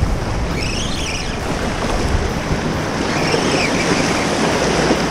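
Surf washing against the jetty's rock boulders: a steady rushing noise, with wind buffeting the microphone.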